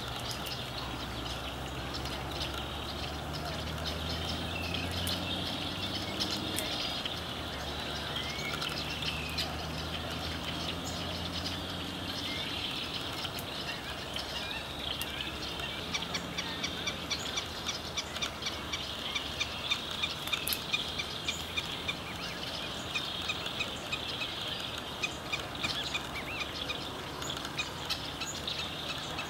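Background birdsong of small songbirds: many thin chirps and whistled notes over a low hum. About halfway through, a fast run of short ticking notes starts and keeps up until near the end.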